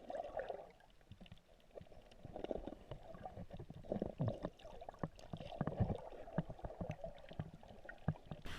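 Water sloshing and splashing in irregular strokes, with occasional knocks, as a paddle or hands work through the water around a small boat.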